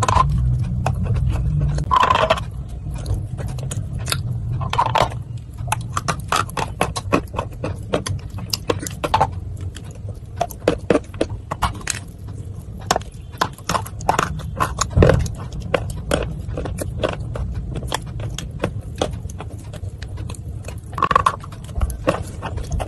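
Close-miked crunching and chewing of dry khadi clay in the mouth: a dense, irregular run of crisp crunches and clicks, a few louder bites standing out, over a steady low hum.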